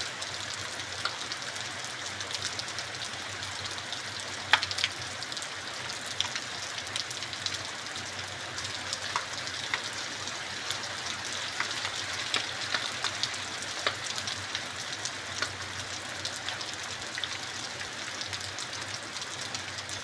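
Heavy rain falling: a steady hiss with many separate drops ticking and spattering on a hard surface, one sharper spatter about four and a half seconds in.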